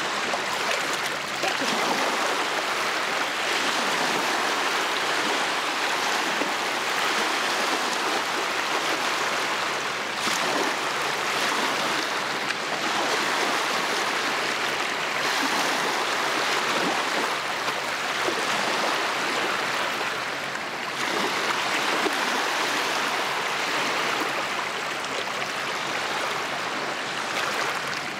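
Small waves on open lake water lapping and washing, a steady rushing sound with small swells in loudness.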